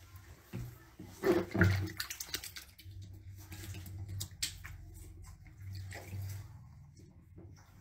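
Water splashing onto turtles' shells and a tiled floor, with many small clicks and spatters, loudest about a second and a half in.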